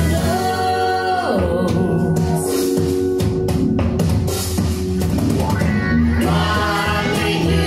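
Children's worship song about God making the animals: a voice singing over guitar and drums, with a short instrumental stretch in the middle.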